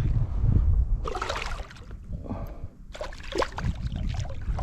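Water splashing and sloshing in two spells beside the kayak as a hooked fish fights at the surface, over a low rumble of wind on the microphone.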